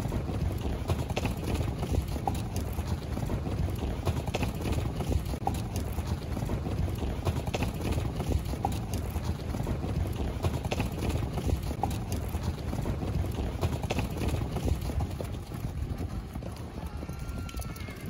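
Hoofbeats of a large herd of horses running over dry earth: a dense, continuous clatter of many hooves, easing a little near the end.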